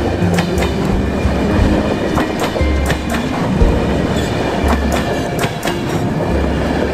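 Passenger train coaches rolling past at speed, a steady rumble with repeated clicks from the wheels passing over rail joints.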